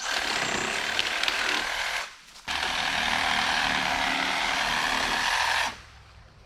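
Milwaukee Sawzall reciprocating saw with a long pruning blade cutting through tree branches, in two runs of about two and three seconds with a short pause between.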